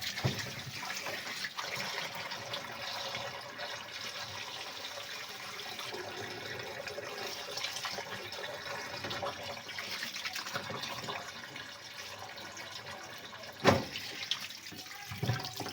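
Running water splashing steadily while dirt is rinsed out of a twin-tub washing machine's wash tub, with one sharp knock near the end.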